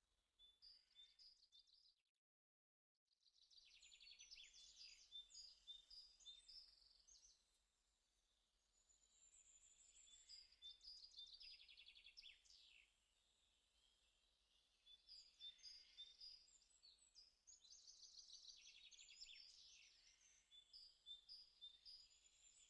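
Faint birdsong: small birds chirping and trilling in repeated phrases of a few seconds, with a brief drop to dead silence about two seconds in.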